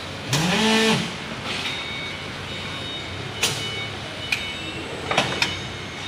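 Automatic plastic (PET) strap pallet strapping machine working. Its motor whines up in pitch and holds for under a second, then sharp mechanical clicks and clacks come several times over a faint steady high whine.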